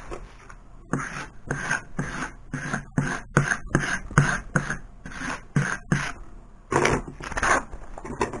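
A hand tool scraping and rubbing across a vinyl decal sheet in quick repeated strokes, about two a second.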